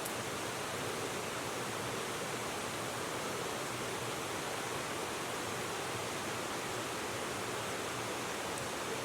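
Steady rushing of a river flowing.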